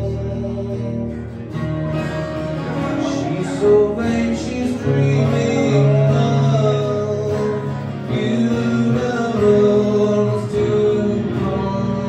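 A live song played on two guitars, one of them acoustic, with a man singing over them.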